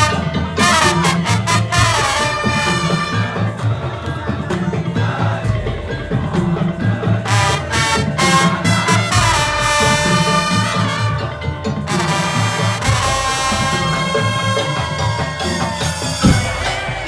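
Madurese tong-tong ensemble music: a steady rhythm of low drums under a pitched melodic lead line.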